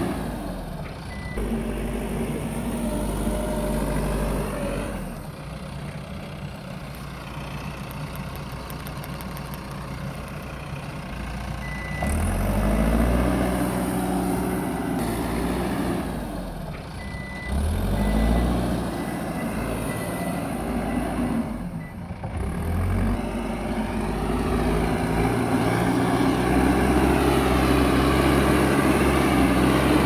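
Mahindra backhoe loader's diesel engine running and revving up repeatedly under load as it drives and pushes soil with its front bucket. A high reversing alarm beeps at times.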